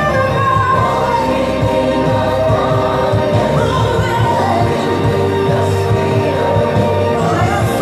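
Gospel worship song: singing voices with a choir over a steady band accompaniment.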